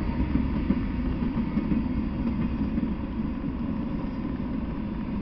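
Steady low rumble of freight cars rolling past on the rails.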